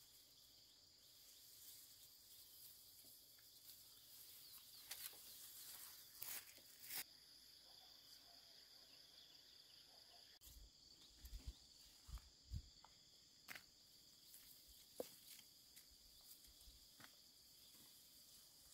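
Faint, steady high-pitched insect chirring in the hillside vegetation, with a few soft clicks and low thumps scattered through it.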